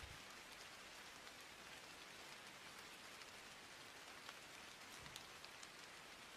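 Near silence: a faint, steady hiss with scattered small crackles, the bare noise floor of the recording. No music or voice from the advertisement comes through.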